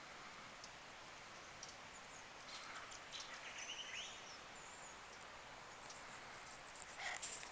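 Faint outdoor ambience of birds chirping and whistling over a steady hiss, with a cluster of short calls about three seconds in.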